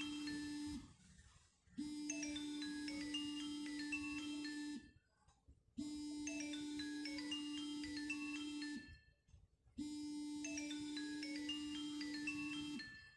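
Phone ringtone: a short chime-like melody over a steady low tone, playing for about three seconds and repeating every four seconds, set off by the smartwatch's find-phone search. It stops near the end.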